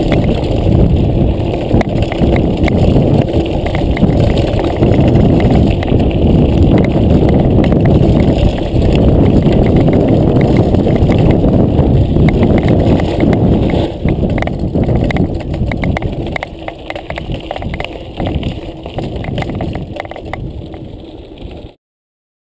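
Mountain bike rolling over a loose stony gravel track: tyres crunching and the bike rattling over the stones, with wind rumbling on the camera microphone. It gets quieter in the last several seconds, then cuts off abruptly near the end.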